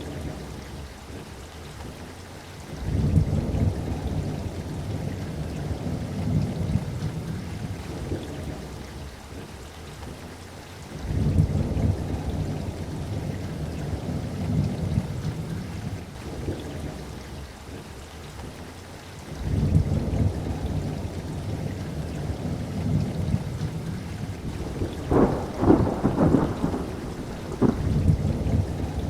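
Thunderstorm: steady rain with three rolls of deep rumbling thunder, each swelling up and fading over several seconds, and a closer series of sharp cracks of thunder near the end.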